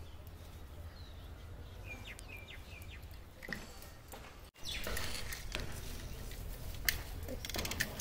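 A few short bird chirps over a steady low outdoor rumble. About halfway through the sound breaks off abruptly and gives way to louder rustling and several sharp clicks of handling among the rose plants.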